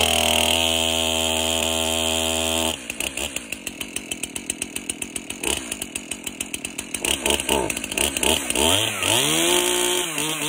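Stihl MS271 Farm Boss chainsaw's two-stroke engine catches on a cold-start pull and runs at a steady high speed. About three seconds in it drops to a lower, pulsing idle, then is revved up and down several times near the end.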